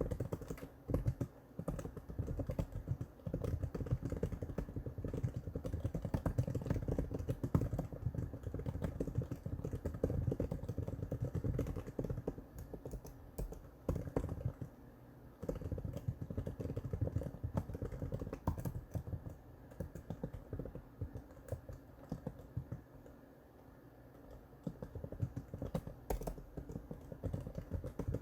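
Typing on the Apple Magic Keyboard for the 11-inch iPad: a run of rapid, irregular key clicks with a couple of short pauses.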